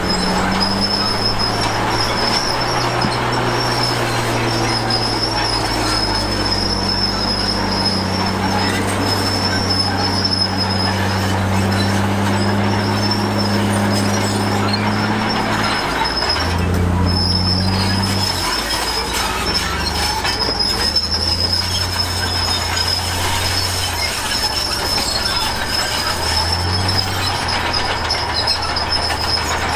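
Komatsu D53P crawler bulldozer working: its diesel engine runs under changing load, shifting pitch a few times, while its steel tracks give a steady high squeal over the mechanical rumble.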